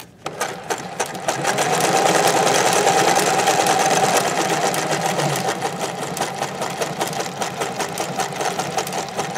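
Vintage zigzag sewing machine running at speed, its needle clattering rapidly as it sews a close zigzag satin stitch over scallop stitching. It picks up speed over the first two seconds, then runs steadily.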